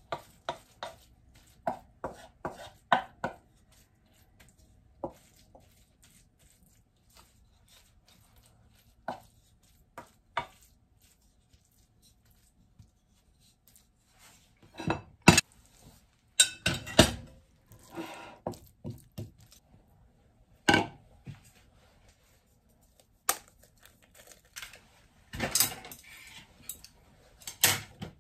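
Wooden spatula scraping and knocking against a nonstick frying pan as cooked ketchup rice is pushed out onto a plate, with scattered clatters of the pan. The knocks come in irregular clusters with quiet gaps, loudest a little past the middle and near the end.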